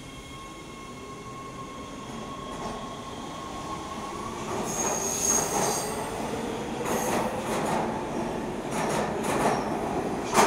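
Los Angeles Metro B Line subway train pulling out and gathering speed: its motor whine rises in pitch, the wheels squeal briefly about five seconds in, and the clatter of wheels on the rails grows louder as the cars pass, with a sharp clack at the end.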